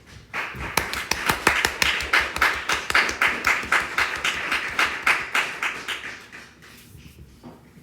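Congregation clapping in time, a steady beat of about four claps a second, fading out near the end.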